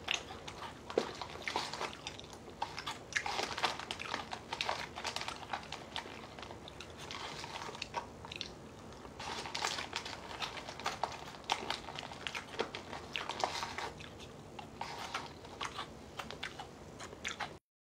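Close-up chewing and crunching of dry Lucky Charms cereal and marshmallows, a run of small irregular crunches and mouth sounds that stops abruptly just before the end.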